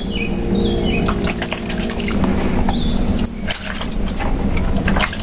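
Liquid sloshing and splashing as a plastic measuring jug is dipped and swished through a basin of mashed noni fruit mixture, a gloved hand scooping the liquid through the jug to rinse the molasses out. Small clicks and splashes run all through it.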